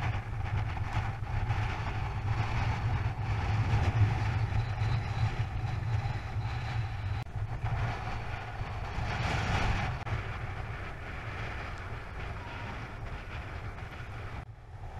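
Wind buffeting a camera microphone: a steady low rumble with a rougher hiss over it that swells and eases in gusts.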